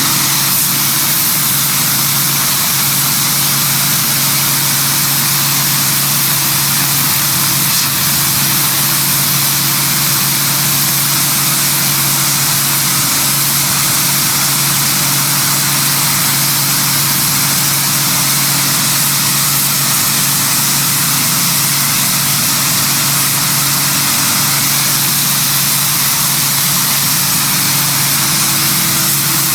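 Sun Joe SPX4000 electric pressure washer running steadily: a constant motor-and-pump hum under the loud hiss of the high-pressure water jet blasting dirt off flagstone.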